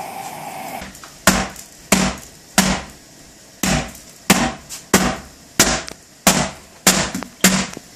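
A hammer striking the bottom of an upturned metal baking pan about ten times, in a steady run with a short pause partway, to knock a freshly cast zinc piece and its mold out of the pan.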